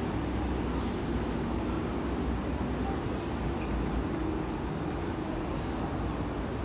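Steady low hum of city street ambience, with no single sound standing out.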